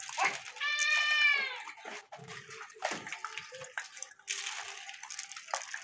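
A grey langur gives one high, squealing call about half a second in, lasting about a second, with light clicks and rustles of grain being picked from a concrete floor around it.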